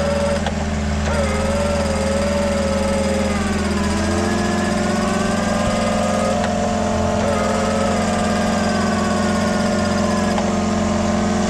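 Off-road 4x4 vehicle's engine running at low speed, its pitch drifting gently up and down.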